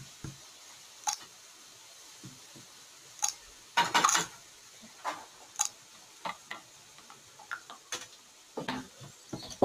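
Scattered light clicks and taps of small hard objects being handled, roughly one a second, with a louder cluster about four seconds in.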